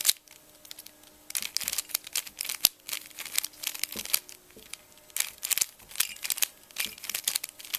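Plastic Rubik's Cube layers being turned by hand in quick runs of clicking and rattling, with short pauses between runs, as the superflip move sequence is performed.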